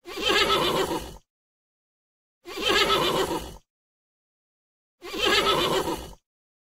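An animal call, a wavering cry of about a second, repeated three times about two and a half seconds apart with dead silence between.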